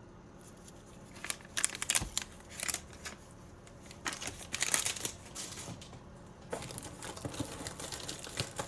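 Plastic packaging crinkling in irregular bursts as small packaged products are handled and rummaged through, busiest near the middle.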